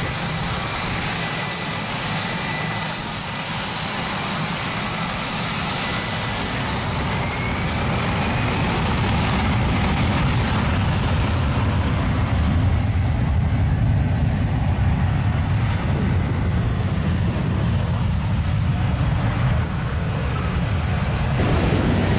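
Jet engines at high thrust: a steady, high turbine whine at first, giving way to a louder, low roar of jet blast from about halfway through.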